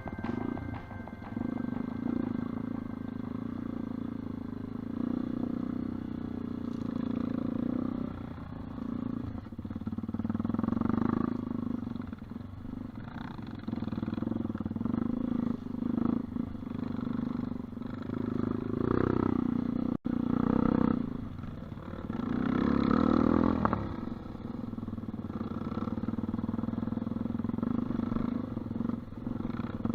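Off-road dirt bike engine running on a trail, revving up and easing off again and again with the throttle, with several louder surges. The sound drops out for an instant about two-thirds of the way through.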